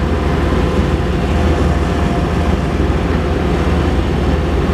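Skid steer engine running steadily, a deep drone with a faint thin whine above it, heard from inside the cab while the machine dumps a load of snow.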